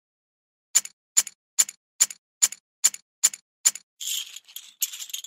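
Computer sound effects of a poker game: eight short card-dealing snaps, a little over two a second, then a clatter of poker chips near the end as blinds and a bet are put in.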